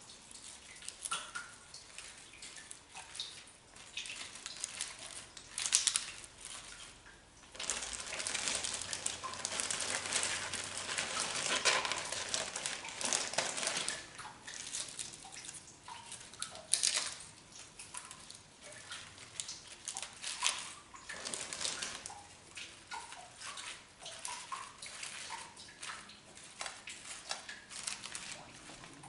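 Crinkling of a plastic produce bag and rustling of fresh lettuce leaves being pulled out and laid on a plate, with scattered light clicks. The rustling grows denser for several seconds in the middle.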